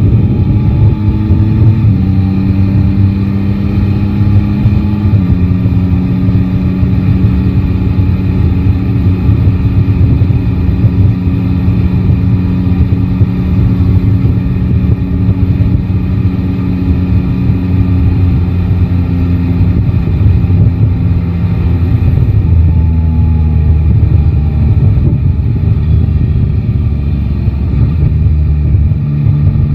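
Yamaha Tracer 9 GT's inline three-cylinder engine running steadily on the move. Its pitch rises briefly, then drops in a few distinct steps, about two seconds in, about five seconds in and again near the end, over a dense low rumble.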